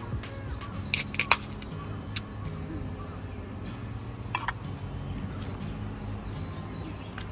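Background music with sustained low notes, with a few sharp clicks about a second in and another around four and a half seconds in.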